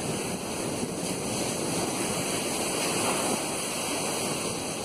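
Ocean surf breaking and washing up a sandy beach, a steady rushing.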